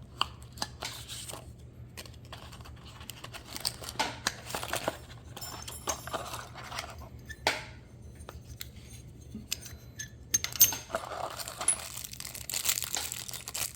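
Door-lock parts and packaging being handled: irregular clinks of small metal pieces and screws, mixed with plastic packaging rustling and tearing.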